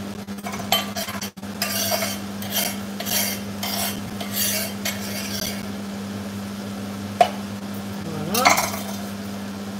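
Kitchen knife cutting on a marble cutting board: a run of scraping strokes, about two a second, then a single sharp knock near the end. A steady low hum runs underneath.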